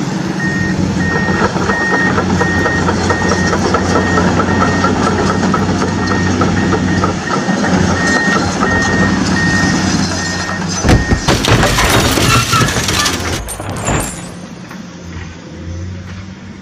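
Huina radio-controlled toy excavator running, with a steady engine-like hum and a warning beep repeating a little under twice a second. About eleven seconds in the beeping stops and there are a few seconds of loud clattering and scraping as the toy tips over onto the rocks, then the sound drops away.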